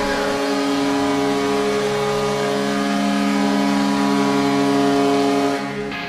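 NHL arena goal horn blasting one long, steady chord of several tones at once, celebrating a goal; it cuts off near the end.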